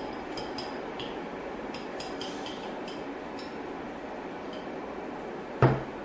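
Chopsticks tapping and clinking against a ceramic rice bowl while eating: a scatter of light ticks with a short ring during the first few seconds, over a steady room hum. A loud thump comes near the end.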